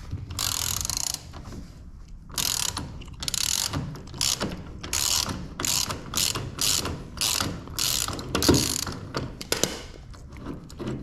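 Ratchet wrench worked in quick repeated strokes, each stroke a short rasping burst of pawl clicks, on the bolt of a fixed toolbox caster. After one longer stroke it settles into about two strokes a second.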